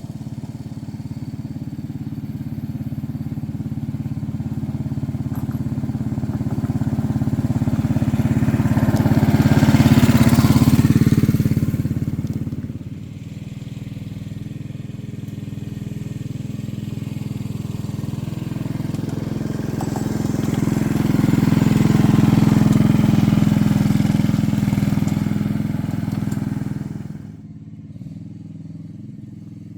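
A machine's engine running steadily and getting louder twice, first building to a peak about ten seconds in, then dropping back, then building again. It falls away to a quieter level near the end.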